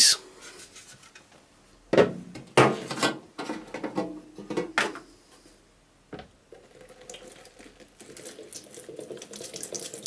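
A few knocks as a plastic part and a metal tin are handled and set down. Then, from about six and a half seconds in, acetone pours steadily from the tin into a plastic tub lined with paper towels.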